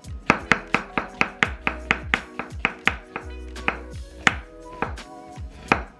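Chef's knife slicing an onion thinly on a wooden cutting board: a quick run of sharp taps of the blade hitting the board, about four a second, with a couple of brief pauses. Background music plays underneath.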